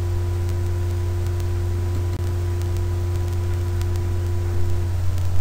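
Steady low electrical hum with a hiss and a faint steady higher tone over it, interrupted once by a brief click about two seconds in.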